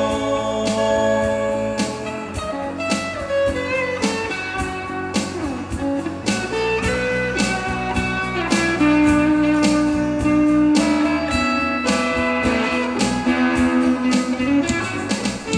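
Live band playing an instrumental guitar break: an electric guitar plays a lead line of held and bent, sliding notes over rhythm guitar and electric bass, in a bluesy style.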